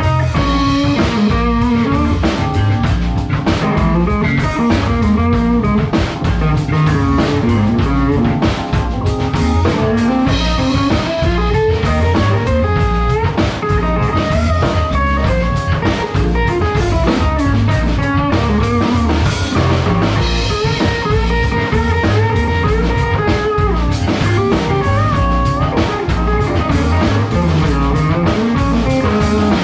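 A live band playing instrumental fusion: hollow-body electric guitar, electric bass and drum kit playing together.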